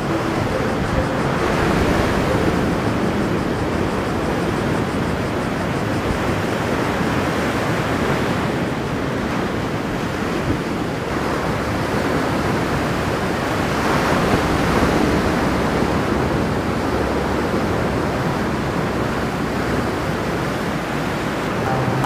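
Ocean surf breaking and washing up the shore: a steady rush of water that swells louder a few times as waves come in.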